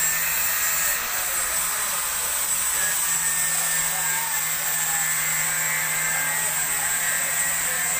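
Steady, even background hiss with a faint low hum underneath, without distinct knocks or voices.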